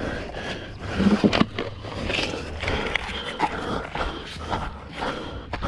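A racer breathing hard, with irregular footfalls and gear knocking, heard close on a chest-mounted camera's microphone.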